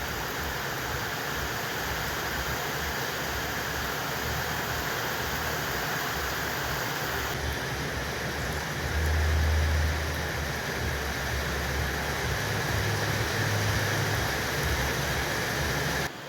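Rain falling steadily, a dense even hiss, with a low rumble that swells about nine seconds in and again later on.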